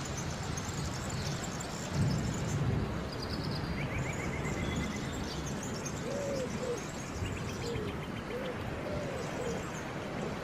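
Steady rain hiss with jungle birds calling over it. Low, rising-and-falling call notes repeat several times, mostly from about six seconds in, alongside short higher trills and chirps. A low rumble swells briefly about two seconds in.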